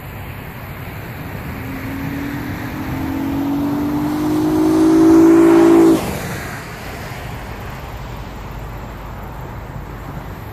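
Honda Accord 3.5 L V6 with a Takeda short ram intake accelerating past, its engine note climbing steadily in pitch and growing louder, then cutting off abruptly about six seconds in as the throttle closes.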